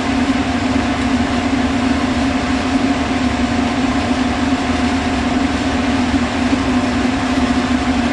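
Loud, steady mechanical hum with a strong low drone and a fainter higher tone, like a running motor or fan.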